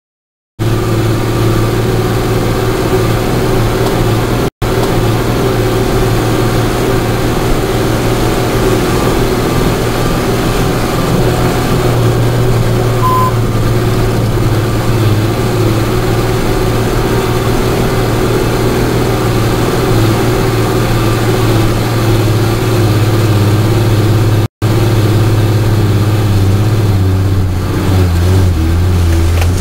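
Star fire truck's engine running inside the cab as it drives along a rough dirt track: a loud, steady, deep drone. The sound cuts out briefly twice.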